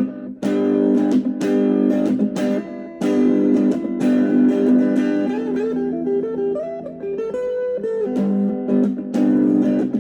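Guitar music: chords strummed in a steady rhythm, with a single-note picked melody line in the middle before the strumming returns.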